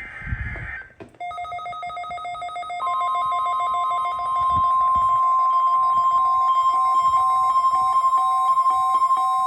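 The tail of a NOAA Weather Radio EAS/SAME header data burst, a buzzy screech, ends about a second in. Then a weather radio receiver starts beeping rapidly in its alert pattern. About three seconds in, the steady NOAA Weather Radio warning alarm tone begins and holds over the beeping, marking the weekly alarm test.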